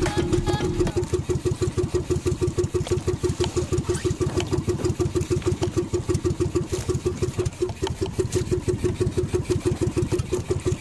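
Engine of a small outrigger motor banca running steadily while under way, a fast even chugging.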